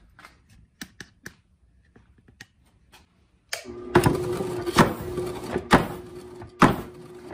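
A homemade single-stamp stamp mill starts up about halfway through. A steady motor hum begins, and the stamp drops onto crushed ore with four heavy strikes, a little under a second apart.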